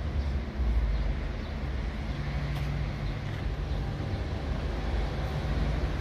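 Street ambience: a low, gusting rumble of wind on the microphone over traffic noise, with a steady low hum from about two seconds in until near the end.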